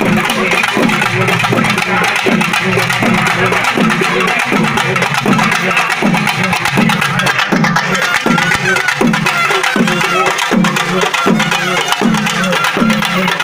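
Music with a steady, repeating drum beat, about three beats every two seconds.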